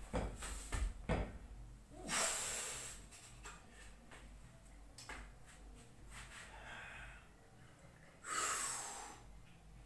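Forceful, hissing breaths from a lifter squatting a 100 kg barbell, two big exhales about six seconds apart, after a few knocks and thuds in the first second.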